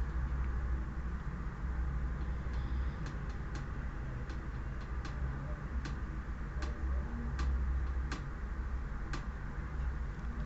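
Irregular light clicks, roughly one or two a second for most of the stretch, over a steady low hum.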